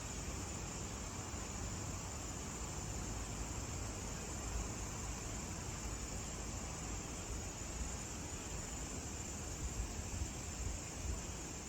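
Steady outdoor ambience: a continuous high-pitched insect chorus, such as crickets, over an even hiss and a low rumble.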